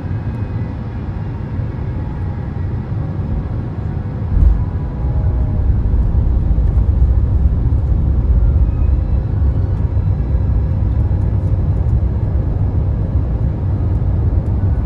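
Airliner cabin noise during the descent: a steady low rumble of airflow and engines. About four and a half seconds in there is a brief thump, and the rumble is louder after it.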